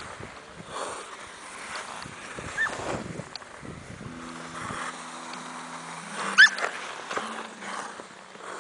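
Clear lake ice singing under a skater: short, sharp chirps that sweep upward in pitch, two of them, the louder one about six seconds in, over the scraping hiss of skate blades on the ice.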